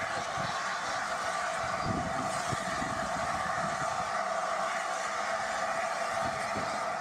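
LNER A4 Pacific steam locomotive 'Sir Nigel Gresley' standing in steam, giving a steady hiss, with wind buffeting the microphone in uneven low rumbles.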